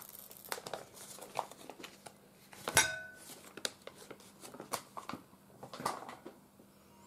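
Plastic film being peeled off a microwaved pack of cooked rice and the plastic tray tipped over a ceramic plate: crinkling plastic, then one sharp clack with a brief ring just under three seconds in, followed by a few lighter taps and rustles.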